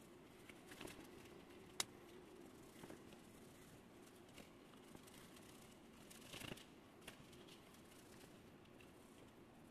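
Faint rubbing and handling of a small aluminum plug being hand-buffed with a cloth rag, with a few light clicks, the sharpest about two seconds in.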